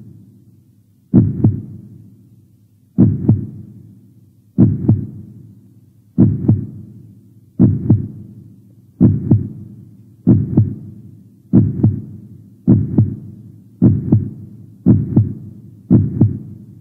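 A low double thump, lub-dub like a heartbeat, repeats about every one and a half seconds and gradually quickens, each pair dying away before the next.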